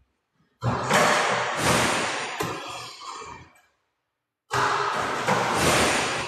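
A basketball going through the hoop into a ball-return shooting machine's catch net and being fed back out, twice. Each begins suddenly, as the ball reaches the rim, and dies away over about three seconds, with silence between.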